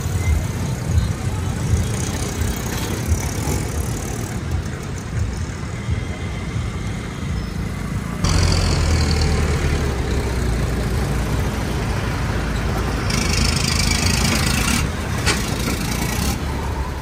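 Mixed road traffic crossing a railway level crossing: motorcycle and engine noise, jumping louder about eight seconds in, with the diesel engines of a backhoe loader and a dump truck passing close near the end.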